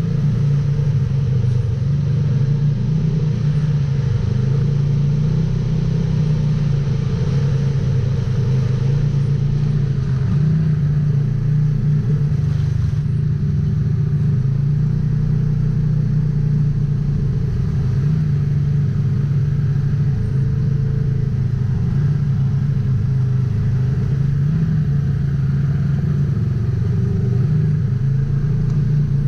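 Polaris RZR XP 1000 side-by-side's parallel-twin engine running at a fairly steady speed while driving: a continuous low drone that wavers slightly in pitch.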